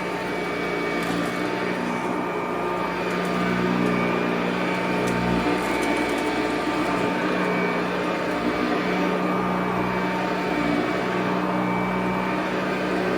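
Sanitaire SC684 upright commercial vacuum running steadily as it is pushed over carpet: a steady motor hum and whine, a little louder from about four seconds in.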